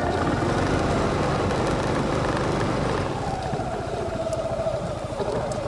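Motorcycle engine running as the bike rides along a gravel track, a rough rumble with a wavering engine note that dips slightly and eases a little about three seconds in.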